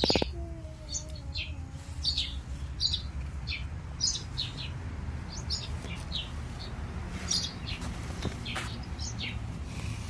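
Small songbirds chirping, many short high chirps coming irregularly one after another, over a steady low rumble.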